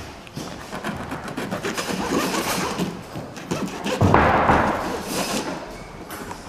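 Bread knife sawing through crusty baguettes on a plastic chopping board: crackling crust and the knife knocking on the board, with a heavier thud about four seconds in.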